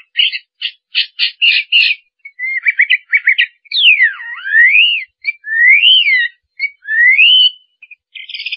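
Bird calls: a quick run of short chirps, about four a second, then long whistled calls that slide down and up in pitch.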